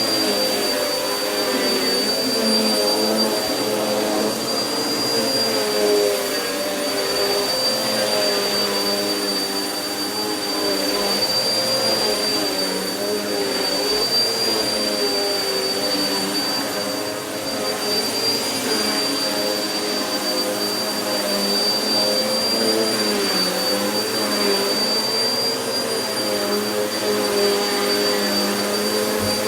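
Vacuum cleaner running steadily on carpet, with a constant high whine over its motor hum; the motor's pitch wavers slightly as the cleaner is pushed back and forth.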